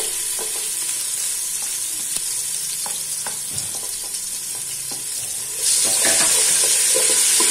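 Garlic and green-chilli paste sizzling in hot olive oil in a pot, with small clicks of a wooden spoon scraping it in. About five and a half seconds in, the sizzle turns suddenly louder as the spoon starts stirring the paste through the oil.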